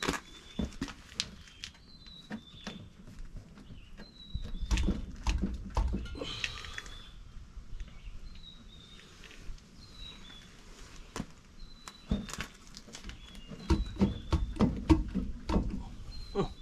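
Scattered metallic clicks and knocks from hands working a truck's wheel hub and bearing, with busier, heavier clusters about five seconds in and again near the end. A bird chirps repeatedly in the background, a short high two-note call every second or two.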